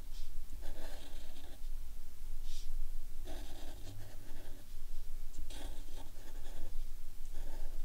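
Felt-tip marker scratching across paper as small rock shapes are drawn, in several short strokes of about half a second to a second each.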